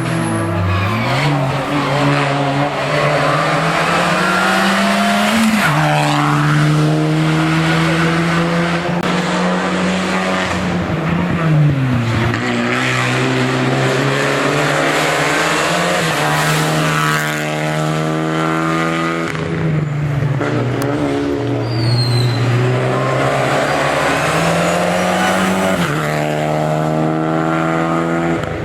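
Hill-climb race car engine at full throttle up the course, its note rising through the revs and then dropping back several times as it shifts and brakes for bends.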